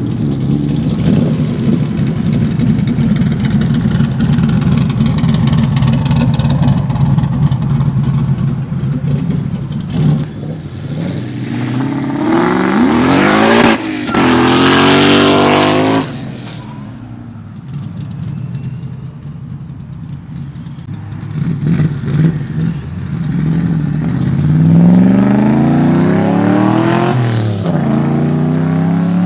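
Ford Mustang V8 engines running hard in a race: a steady engine drone, then revs climbing steeply about twelve seconds in. Near the end the revs climb again, drop briefly at a gear shift and climb once more.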